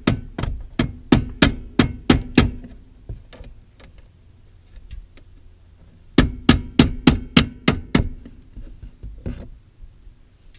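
Hammer striking a long screwdriver held against the jammed shifter linkage of a Polaris Sportsman 400 ATV, in sharp blows to knock the shifter loose. There are two quick runs of about eight or nine blows each. The first comes about three a second, and the second is faster and starts about six seconds in. A single softer knock follows near the end.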